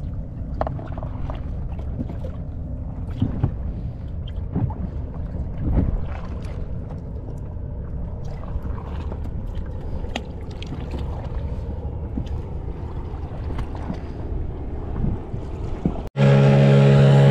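Low steady rumble of water and wind around a small drifting foam boat, with occasional light knocks and clicks from handling fishing line on the hull. Near the end, after a sudden break, a 12 hp Hangkai outboard motor runs loudly and steadily.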